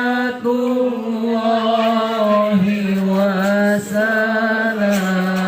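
A solo voice singing sholawat, holding one long drawn-out vowel with melismatic ornaments, dipping briefly a couple of times.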